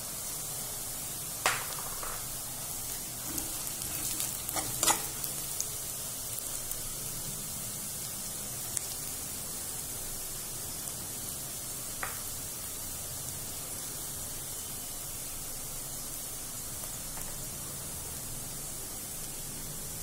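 Chopped onions, green chillies and curry leaves frying in hot oil in a kadhai: a steady sizzle. A few sharp clicks stand out, a cluster in the first five seconds and one about twelve seconds in.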